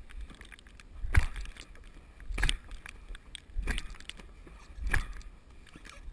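Dynamax soft-shell medicine ball being thrown and caught back and forth in a steady rhythm, one slap of the ball in the hands about every second and a quarter, five times.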